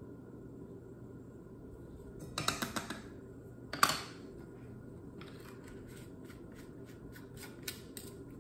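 Small clicks from handling a measuring spoon and a vanilla extract bottle: a short cluster of taps, then one sharp click as the spoon is set down on the table. A run of faint ticks follows as the bottle's screw cap is twisted back on.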